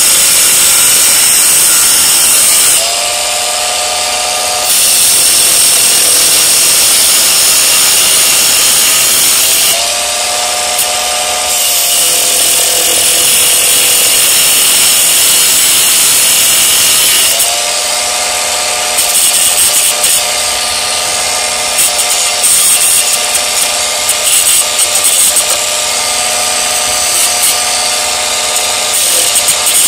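Bauer 4-1/2-inch 20-volt cordless angle grinder grinding down screw ends that stick out of wood: a loud grinding rasp, which drops away to the motor's steady free-running whine at about three, ten and eighteen seconds as the disc comes off the work. In the last third the grinding comes in short, uneven spells.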